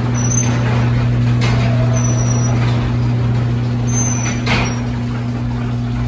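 Garage door opener's electric motor humming steadily as it drives the sectional door down, with a few brief clacks from the door rolling in its tracks. The door runs all the way closed without reversing, its safety sensors now realigned to see each other.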